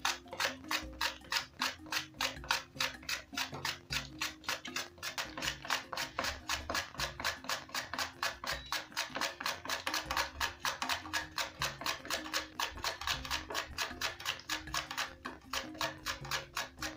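Cucumber being sliced on the blade of a plastic grater, quick rasping strokes about four a second, over background music.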